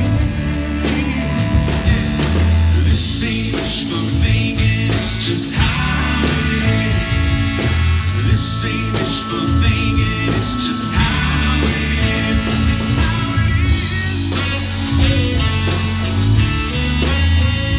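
Live Christian rock band playing at full volume through a PA: drum kit, bass and electric guitar, with a man's lead vocal during the first part.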